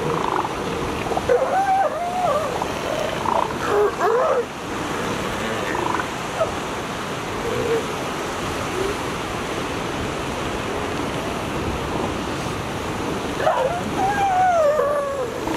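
Steady surf with northern elephant seals calling on the beach: wavering, pitch-bending cries between about one and four seconds in, and again near the end.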